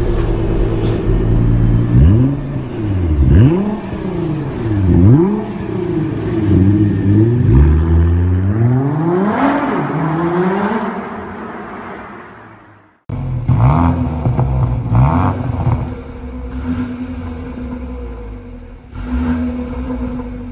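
Engine revving that rises and falls repeatedly, then fades away. After a sudden cut, a BMW 430i's turbocharged four-cylinder idles through an Underground Exhaust Stage 2 valved exhaust with the valve closed, blipped to higher revs several times.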